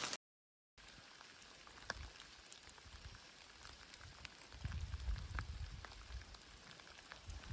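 Light rain falling, with scattered sharp raindrop ticks. A low rumble rises from about four and a half to six seconds in.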